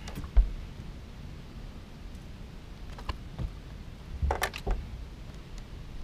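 Wind rumbling on the microphone, with a sharp thump about half a second in and a short run of knocks and clicks around four and a half seconds.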